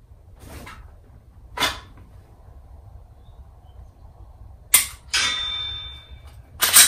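Dry-fire draw with a Heckler & Koch VP9 striker-fired pistol. A rustle as the gun comes out, then a sharp trigger click about five seconds in, followed by a tone about a second long. A louder clack comes near the end as the slide is worked to reset the trigger for the next dry-fire shot.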